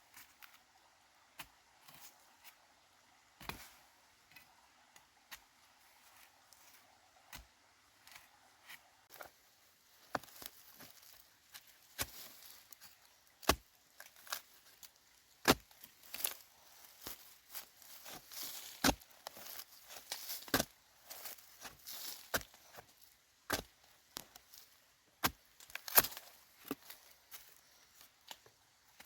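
Scattered sharp knocks and clicks at an irregular pace, sparse at first, then busier and louder from about ten seconds in, with a light rustling between them.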